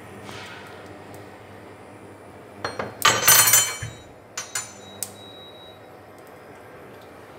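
Kitchen utensils clattering on a counter as a kitchen knife is put down and tofu blocks are handled on a wooden chopping board. There are two clinks, then a short rattling clatter about three seconds in, then three sharp clicks; the last click rings briefly.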